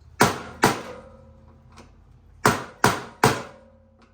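Hammer blows on metal: two quick strikes, then a pause and three more in a steady rhythm, each leaving a short metallic ring.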